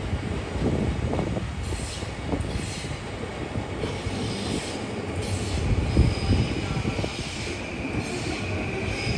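E657-series limited express electric train rolling along the rails with a steady rumble, with high-pitched wheel squeal coming and going over it.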